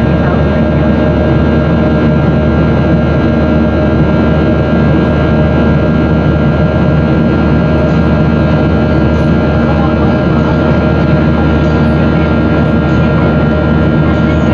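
Steady cabin noise of a Boeing 737 in the climb after takeoff: an even rush of airflow and CFM56 turbofan engine noise, with several constant whining tones held over it.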